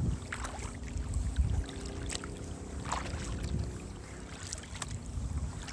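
Kayak paddle dipping into calm canal water, with short splashes and drips every second or so over a low rumble.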